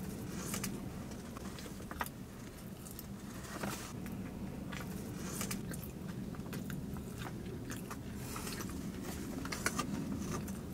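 Close-up chewing and biting of a croissant-dough donut: soft mouth smacks and clicks scattered through, over a faint steady low hum.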